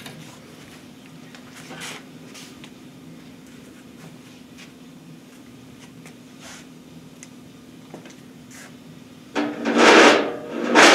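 Low steady hum of shop equipment, with a few light clicks and knocks as a steel connecting rod is lifted off a balancing scale. About nine seconds in come two loud rushing bursts of about a second each.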